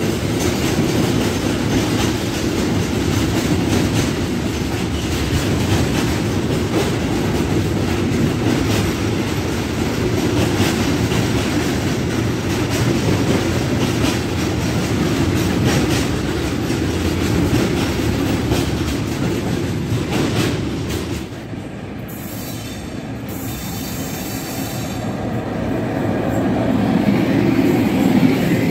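Train passing close by, its wheels clattering rhythmically over rail joints. The noise falls away about three-quarters of the way through as it clears, then builds again near the end.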